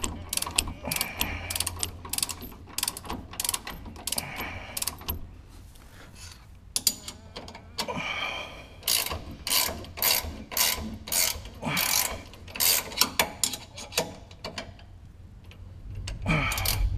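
Torque wrench ratcheting a shock-mount bolt down, its pawl clicking in quick irregular runs, with occasional clinks of steel tools.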